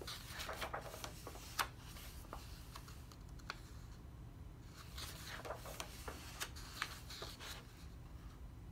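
Pages of a large paperback coloring book being turned by hand: two spells of paper rustling and crackling, one in the first couple of seconds and one from about five seconds in, with a sharp snap of paper about a second and a half in.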